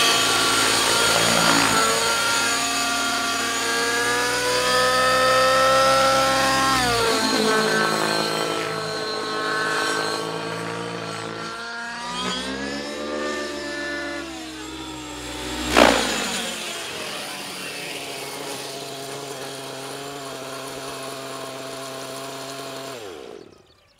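Nitro glow engine and rotor of a 700-size RC helicopter (MSH Protos 700 Nitro) running in flight, its pitch rising and falling as it flies aerobatics, with one sudden loud burst about 16 seconds in. It then runs at a steady pitch and cuts off abruptly about a second before the end.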